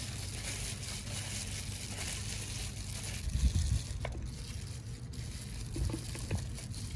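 Light food-handling sounds as sliced ginger and shallots are dropped onto a raw whole fish in a plastic bowl, with a dull thump about three and a half seconds in and a few faint small clicks, over a steady background hiss.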